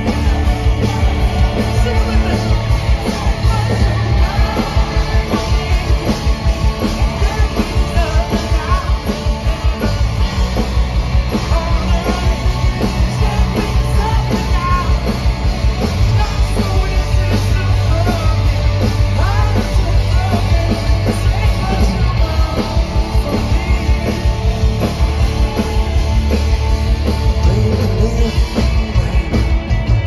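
A live rock band plays at full volume, with distorted electric guitars, bass and drums under a lead singer's vocals. The sound is loud and heavy in the bass throughout.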